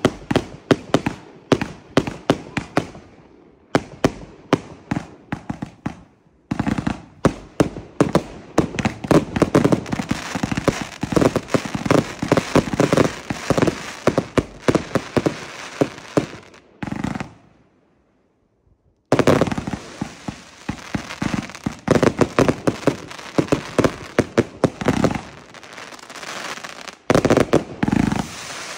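Consumer firework compound cakes firing in quick succession: a dense run of sharp launch pops and bangs, several a second. The bangs stop for about a second and a half around two-thirds of the way through, then resume.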